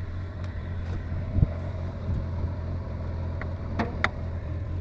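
1996 Jeep Grand Cherokee's inline-six engine idling steadily, an engine that idles rough and spits and sputters when given gas. A single thump comes about a second and a half in, and two sharp clicks near the end.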